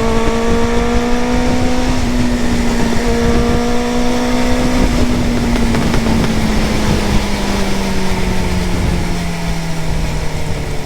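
Benelli 600 cc motorcycle engine under way with wind rushing on the rider's microphone. The engine climbs in pitch, breaks off about two seconds in at a gear change, pulls up again until about halfway through, then falls slowly as the bike eases off.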